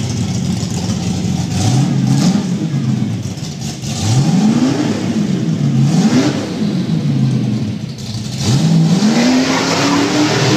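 A Thunderbird's engine being revved with the throttle: its pitch climbs and falls back three times, then climbs again and is held high near the end.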